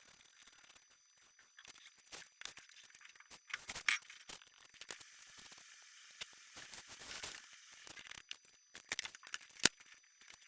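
Scratching, scraping and light tapping of hand work on a sheet of foam board, with a single sharp click near the end.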